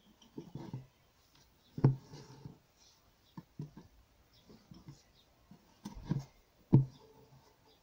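Fine embroidery needle and silk floss thread worked through fabric stretched taut in an embroidery hoop: soft scratching and ticks as the thread is drawn through, with a few sharp taps as the needle is pushed through, the loudest about two seconds in and near the end.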